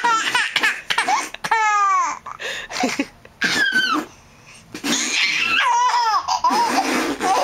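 Baby laughing hard in repeated high-pitched squealing bursts, alternating with raspberries (zerberts) blown with the lips against his bare back.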